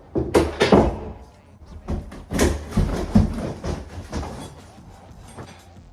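Knocks and scraping of window-removal work on an old window frame: several hard knocks in the first half, then quieter handling sounds.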